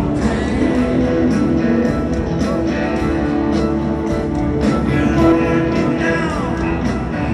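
A live rock band playing in a large arena, led by electric guitar, heard from among the audience.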